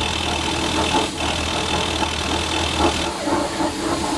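A motor vehicle engine idling with a steady hum, which cuts off about three seconds in, over uneven chugging pulses.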